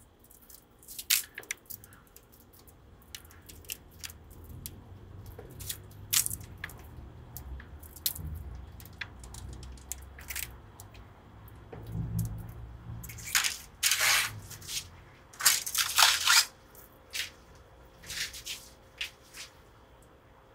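Hands coiling old steel guitar strings: irregular clicks, scrapes and rustles of the wire, with the loudest flurries about two-thirds of the way through.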